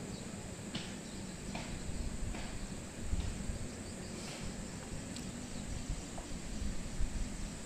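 Daikin inverter split air conditioner's outdoor unit running with a low, even hum during a pump-down, drawing the refrigerant back into the outdoor unit with the 1/4 liquid valve closed. A few faint clicks come from the Allen key on the brass service valves.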